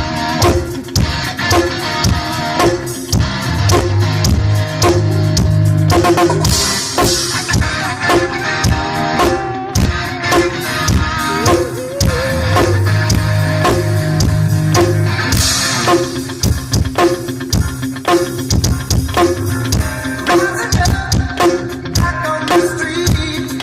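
Electronic drum kit played in a steady rock groove along with backing music, with dense, rhythmic drum strokes throughout.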